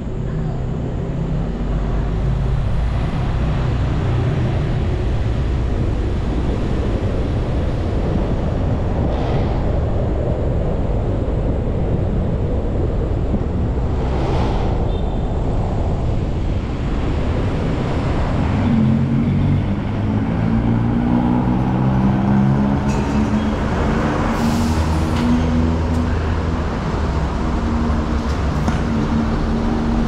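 Vehicle driving on a city road at night: steady engine hum and road noise, the engine's pitch rising a little as it picks up speed in the last third, with a couple of brief hisses.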